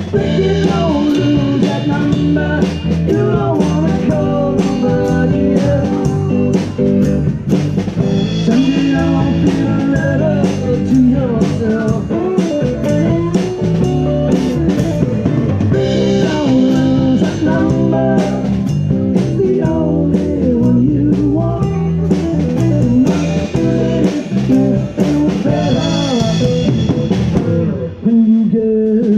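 Live band playing a rock song: electric guitar, bass guitar and drum kit.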